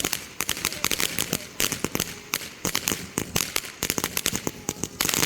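Fireworks crackling: a rapid, irregular run of sharp pops and cracks, many per second.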